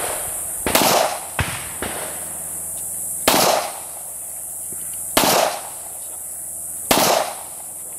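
Glock pistol shots fired one at a time: four loud shots roughly two seconds apart, each with a short echo, and two fainter shots in quick succession just after the first.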